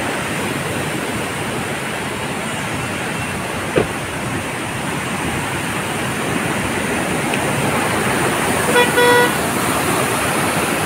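Steady rush of white water from the cascades of Aliwagwag Falls, with one short car horn toot about nine seconds in.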